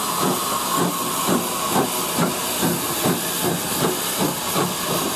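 Steam hissing steadily from the small Fletcher Jennings 0-4-0 tank engine 'Captain Baxter', under a regular soft beat about two and a half times a second.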